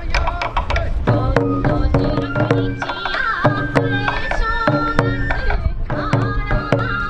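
Sansa odori dance music: taiko drums beaten in a quick, steady rhythm with a high bamboo flute (fue) melody of held notes over it.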